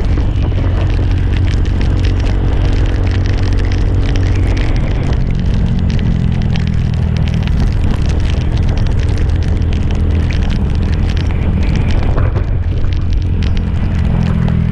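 Motorcycle engine running while riding, under heavy wind buffeting on the microphone; the engine note shifts a couple of times with the throttle.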